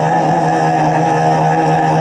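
Tuvan throat singing: one steady, loud drone held throughout, with a strong overtone ringing high above it, accompanied by a bowed Tuvan fiddle.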